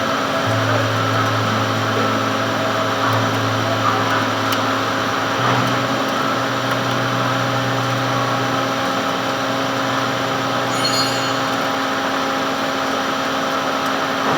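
Metal lathe running steadily while turning a gland, a continuous machine hum with a low tone that shifts in pitch a couple of times.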